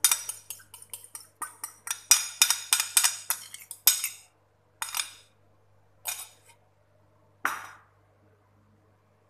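Metal fork scraping beaten egg off a dish: a quick run of clinking strokes for about four seconds, then three single clinks a little over a second apart, the last ringing briefly.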